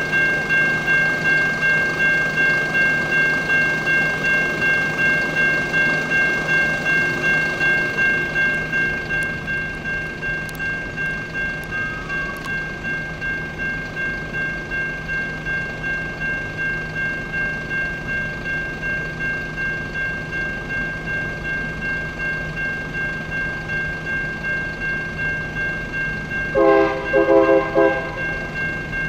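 Electronic railroad-crossing bell (Siemens E-Bell, Safetran Type 3 low tone) ringing continuously in an even run of dings, the sign of an active crossing with a train approaching. Near the end the approaching freight locomotive's air horn sounds once.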